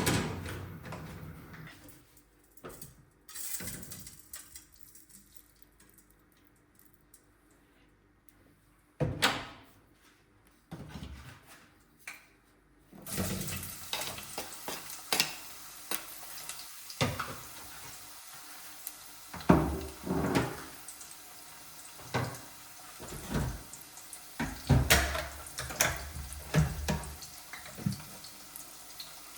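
Kitchen sink work: a few scattered knocks of pots and dishes, then from about halfway a tap running steadily with repeated clatter of dishes or pans being handled under it.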